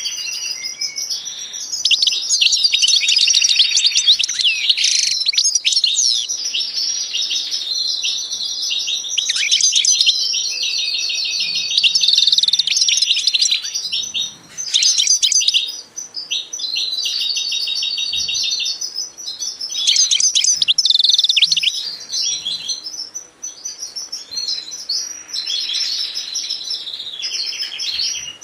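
Birds chirping and singing continuously: rapid high chirps mixed with fast rolling trills of evenly repeated notes, pausing briefly a few times.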